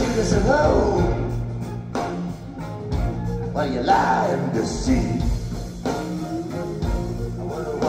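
Live rock band playing, taped from the audience: a male voice singing over guitars, bass and drums.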